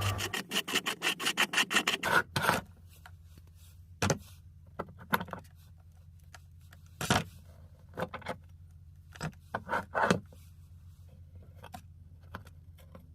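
Scrapes and knocks of a meat grinder and its ground hard candy just after the motor stops: a quick run of clicks for about two seconds, then scattered separate scrapes and knocks over a faint low hum.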